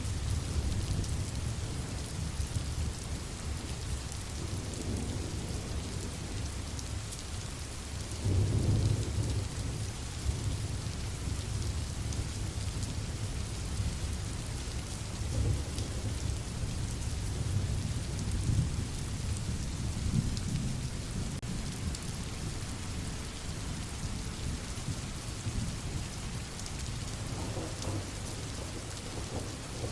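Steady rain hiss with low rolling thunder rumbling underneath, the loudest rumble about eight seconds in.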